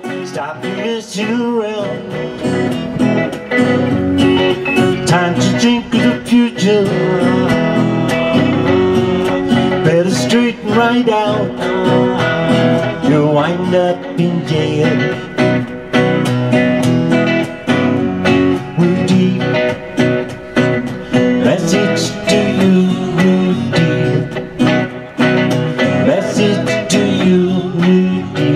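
Live acoustic guitar and electric guitar playing a song together, strummed chords under picked electric lines.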